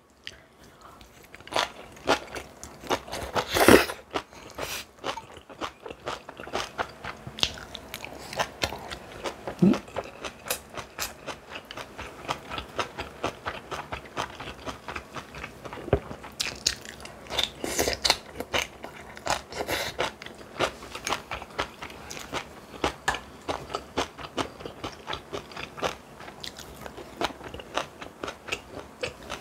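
A person biting, chewing and crunching food in a steady run of small clicks, several a second, with a few louder crunches.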